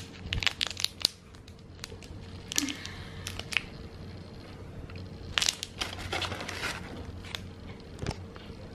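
Scattered crinkling and clicking sounds over a steady low hum.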